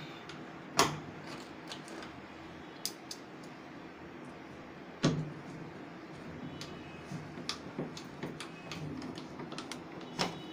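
Scattered small clicks and ticks of a screwdriver and hands on a washing machine's plastic control panel as its screws are driven back in, with two louder knocks, one about a second in and one about five seconds in.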